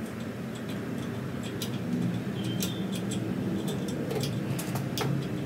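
Hand tap turned with a tap wrench, cutting an M4 thread into an aluminium carburetor body, giving scattered light metallic clicks and ticks, more of them in the second half. A steady low hum runs underneath.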